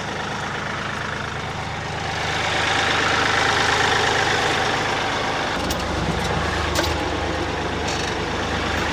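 Kioti tractor's diesel engine running steadily, growing louder about two seconds in, with a few short sharp clicks in the second half.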